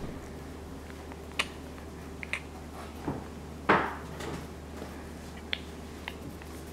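Pencil drawing on paper, faint scratching with a few soft clicks and taps, the loudest just past halfway, over a steady low hum.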